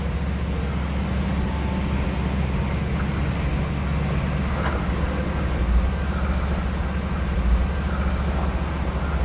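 Railway wedge snowplow pushed through deep drifts by a train: a steady low rumble of the locomotive and churned snow, with two heavier thumps about six and seven and a half seconds in.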